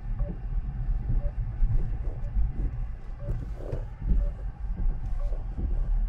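Low rumble of a car driving, heard from inside the cabin. Faint short beeps come about once a second, the pulses of the RF tracking receiver picking up the tracker's signal.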